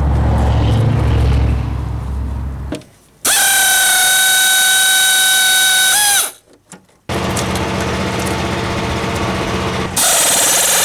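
A power tool driving a socket on a long extension to run out an engine-bay bolt. A steady whine lasts about three seconds, spinning up at the start and winding down at the end. After a break come harsher, noisier runs of the tool.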